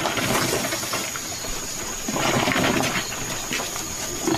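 Marinated chicken pieces sizzling and hissing on a wire grill over hot charcoal as they are laid on, with a few small clicks of the meat being placed.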